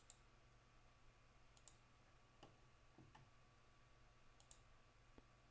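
Near silence with a handful of faint computer mouse clicks, scattered about a second apart, as edges are picked one after another.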